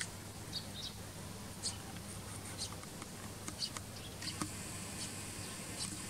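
Eurasian tree sparrows chirping: short, high chirps scattered irregularly. From about four seconds in there is a thinner, more continuous high twittering. A steady low hum runs underneath.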